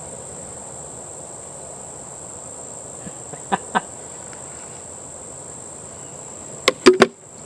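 Steady high-pitched chirring of insects. Two short faint clicks come a little past halfway, and three louder sharp clicks come near the end.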